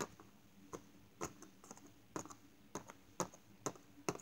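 A string of sharp, uneven clicks, about two or three a second, heard as something out in the dark getting closer.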